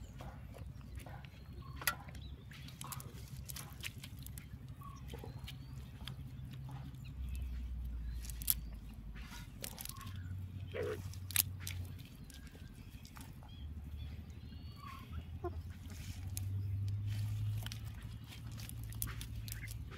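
Wet fishing net being handled and picked through by hand: rustling and a few sharp clicks over a steady low rumble, with a few short animal calls.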